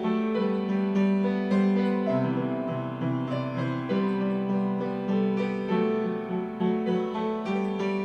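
Background music played on a piano: a slow stream of notes, many of them held and overlapping.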